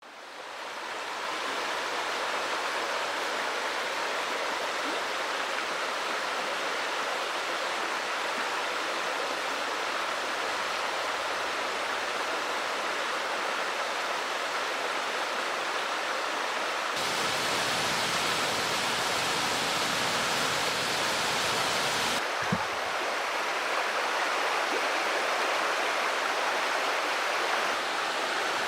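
Mountain stream rushing over rocks, a steady hiss of flowing water that fades in at the start and shifts abruptly in tone about 17 seconds in and again about 22 seconds in. A single short knock sounds about 22 seconds in.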